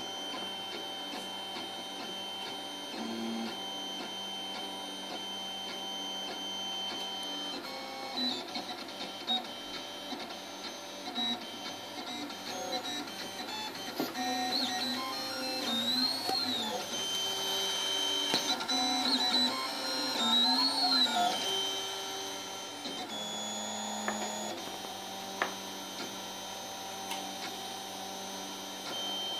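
Solidoodle 3D printer at work: its stepper motors whine in several steady pitches that jump and shift as the print head and bed move. In the middle, the whine swoops up and down a few times as the motors speed up and slow down through curved moves.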